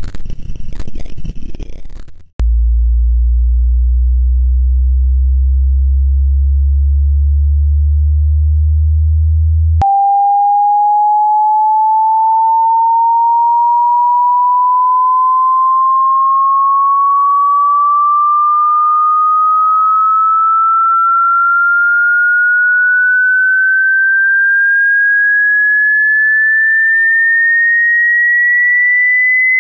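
Synthetic speaker water-ejection tones for pushing water out of a phone speaker. A rough low buzz lasts about two seconds, then a steady deep hum runs to about ten seconds in, then a single pure tone glides slowly and evenly upward in pitch.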